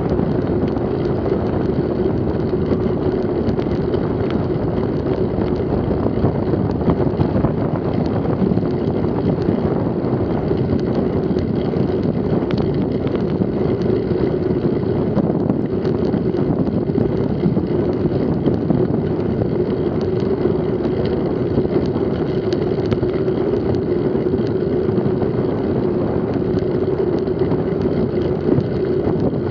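Steady wind rush over the microphone of a bike-mounted camera as a mountain bike rides fast, mixed with the rumble of its tyres on the lane.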